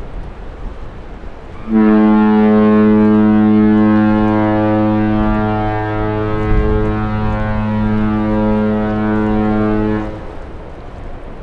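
Ship's horn of the ultra-large container ship Ever Alot sounding one long, deep blast of about eight seconds, starting about two seconds in and then cutting off.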